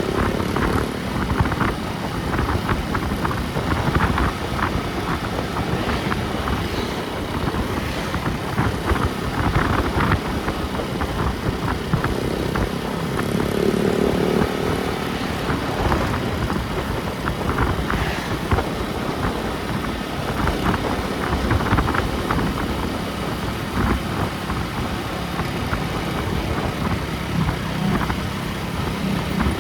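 Vehicle on the move: steady rumble of the engine and road noise.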